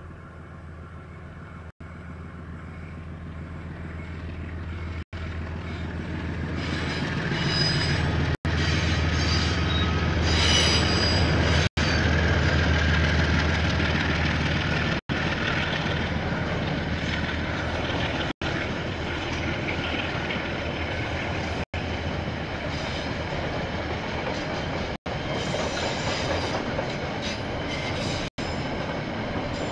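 KiwiRail diesel-hauled train approaching and passing close by: a low steady engine drone builds up over the first several seconds, then the wagons run past with a high-pitched wheel squeal about a third of the way in and again near the end.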